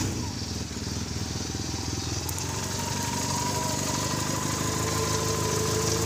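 Volkswagen Gol's 1.6 CHT four-cylinder engine idling steadily just after starting. It carries a 'tec, tec' ticking that persists after the valves were adjusted, which the owner traces to play in the clutch shaft support rather than to the valves.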